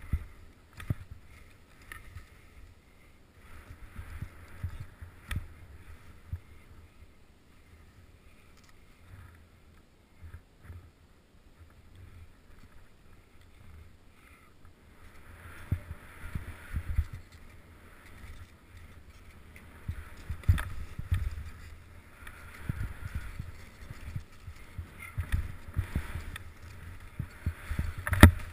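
Skis turning through soft snow: irregular swishes and scrapes with low thumps and sharp knocks. A quieter stretch in the middle gives way to stronger swishes through the second half, the loudest knock near the end.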